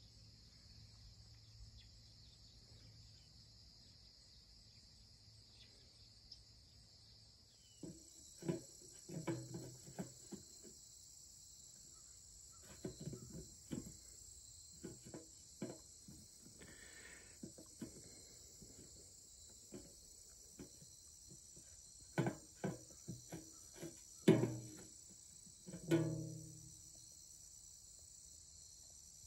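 A steady, high, faint chorus of insects. From about eight seconds in come irregular knocks and clatters, loudest near the end, as a Great Pyrenees dog mouths and paws a ball inside a shallow tray.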